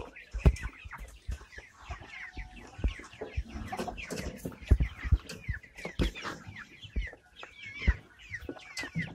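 Flock of Indonesian kampung chickens calling and clucking, with many short high calls falling in pitch overlapping one another. Low thumps come through irregularly, about once a second.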